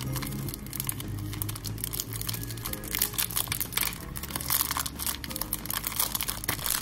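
Clear plastic soap wrapper crinkling and rustling as a bar of soap is unwrapped by hand, in quick irregular crackles.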